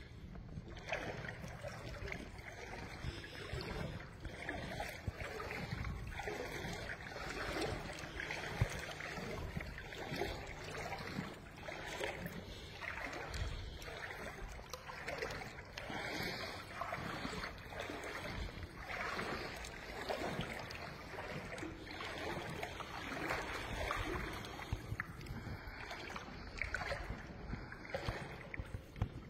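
Rubber water boots wading slowly through shin-deep floodwater, sloshing and splashing with each slow step in a steady rhythm, inside a flooded railway tunnel.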